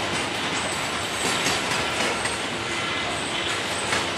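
Norfolk Southern freight train's covered hopper cars rolling past, a steady rumble and rattle of steel wheels on rail, with brief high-pitched wheel squeals coming and going.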